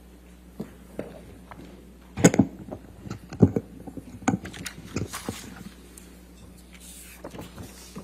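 Scattered knocks, clicks and light rustling of objects being handled and set down close to a microphone. The two loudest knocks come about two and a quarter and three and a half seconds in, with smaller clicks after them, over a low steady hum.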